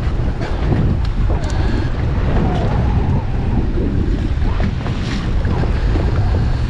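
Strong wind buffeting the microphone, with sea water washing and slapping against the boat's hull in rough conditions. There are a few faint clicks and knocks.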